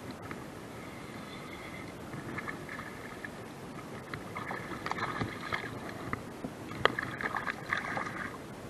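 Water sloshing close to the microphone at the surface, with splashes of a hooked fish thrashing as it is reeled in. The splashes come as a run of sharp clicks and slaps that build up, with the strongest about seven seconds in.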